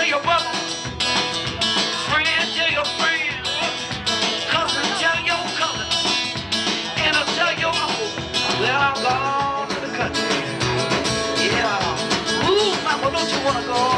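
Live acoustic blues: an acoustic guitar strummed with a drum kit keeping a steady beat, and a man singing into a microphone.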